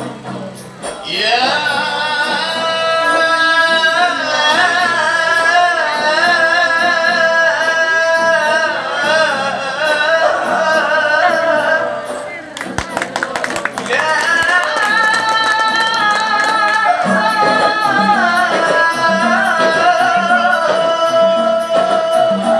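Nasyid singing: a lead voice holding long, ornamented, wavering lines over light hand percussion. About halfway through the singing breaks off for a moment with a quick run of sharp clicks, then resumes.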